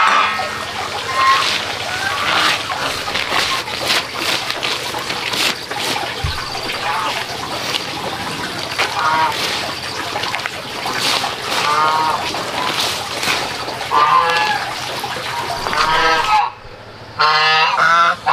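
Domestic geese honking in repeated calls over a steady dry rustle and patter of chopped dried material being tossed and spread by hand on a plastic tarp. Near the end there is a short lull, then a quick run of honks.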